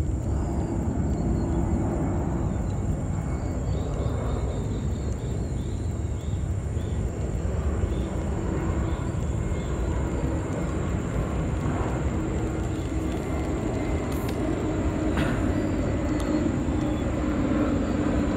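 Steady low outdoor rumble with a droning hum that grows louder in the second half, like distant engine noise.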